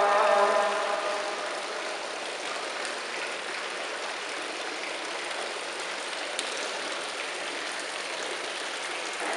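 Water trickling steadily from the spout of a carved stone fountain basin into the pool below. About a second in, the end of a sung phrase of the call to prayer fades out.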